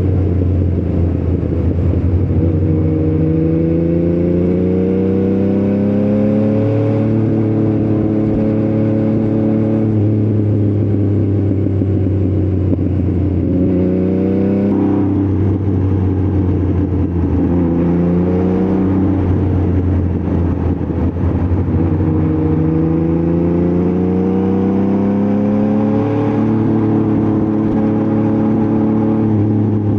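Motorcycle engine running under way, loud and steady, its pitch repeatedly climbing and dropping back as the bike accelerates and shifts gear.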